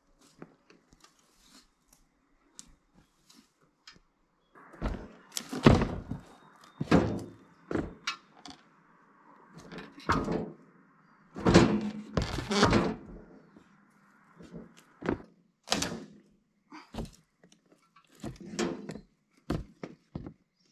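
Steel sawhead of a Rima RS31G portable sawmill being shoved and tipped across plywood sheets: an irregular series of heavy thunks and knocks that starts about four seconds in and is densest in the middle.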